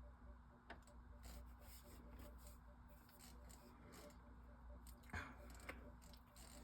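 Faint handling sounds of drink bottles being moved on a fridge shelf: light rustles and clicks, with one sharper knock about five seconds in, over a steady low hum.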